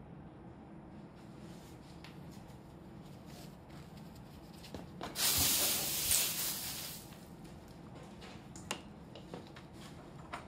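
An aerosol can spraying in one hiss about two seconds long, starting about five seconds in. A few light clicks and taps follow.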